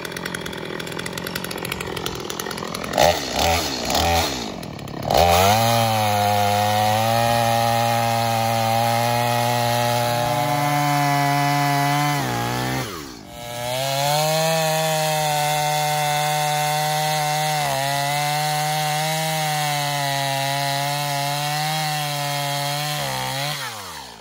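Stihl MS 250 two-stroke chainsaw running low with a few short throttle blips, then revving up about five seconds in and holding full throttle as it cuts through a log. About halfway it drops off briefly and revs back up to cut again, then winds down near the end.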